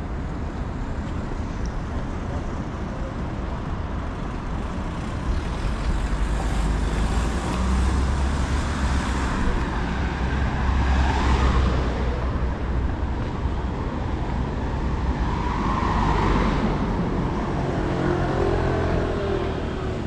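Road traffic: a steady rumble with two vehicles passing more loudly, about halfway through and again a few seconds later.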